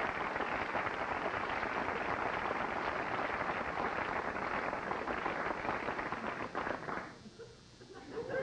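Studio audience applauding and cheering, a dense crackling wash that dies away about seven seconds in.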